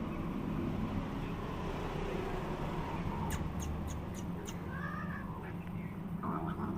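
A cat meows once, a single rising-then-falling call about five seconds in. A few sharp clicks come shortly before it, over a steady low rumble.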